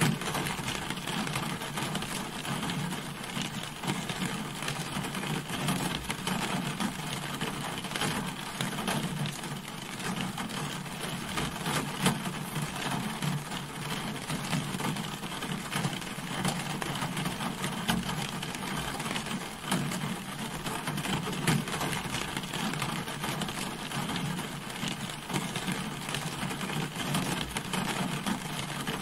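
Rain falling steadily on a car, a dense patter of drops striking the body with no let-up.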